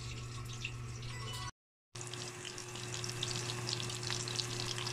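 Burger steak patties of ground meat and onion sizzling as they fry in shallow oil in a pan: a dense, continuous crackle that starts after a short break about two seconds in. A steady low hum runs underneath.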